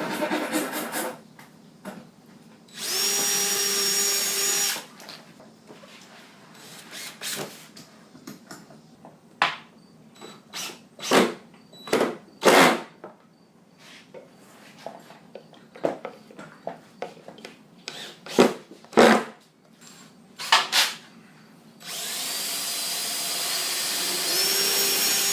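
A power tool running steadily at one pitch in two runs, about two seconds long a few seconds in and about three seconds long near the end, with scattered sharp knocks and taps of wood and tools being handled in between.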